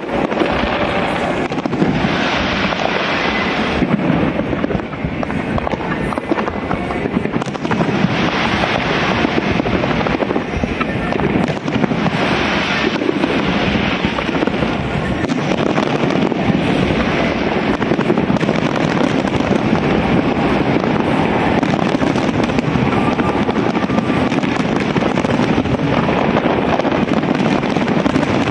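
Fireworks display: a dense, unbroken barrage of bangs and crackling with no pauses between bursts.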